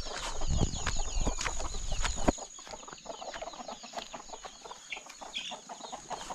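Free-range chickens clucking as they forage, over a steady high-pitched whine. A low rumble runs through the first two seconds or so.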